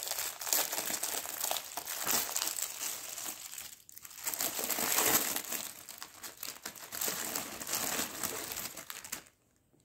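Clear plastic shrink-wrap on a pack of sponge cleaning cloths crinkling and rustling as it is pulled open and peeled off by hand, with a brief pause near the middle. It stops just before the end.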